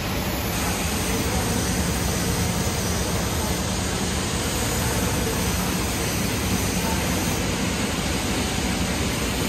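Steady, even rushing background noise of a large fabrication workshop, with no distinct knocks, tool strokes or voices.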